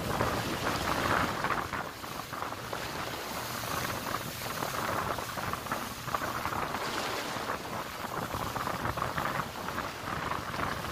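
Wind buffeting the microphone and rushing water on a boat under way at sea, a steady, rough noise that swells and eases.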